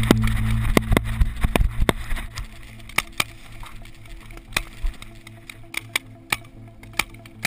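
Paintball markers firing across the field: irregular sharp pops, several close together in the first two seconds, then single pops every second or so. A low steady hum runs under the first two seconds and then stops.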